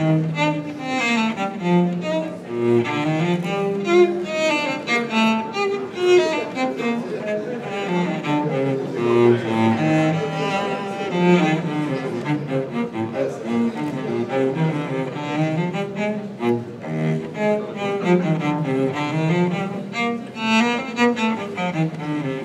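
Instrumental music with bowed strings, the cello prominent, playing a moving melody of many notes.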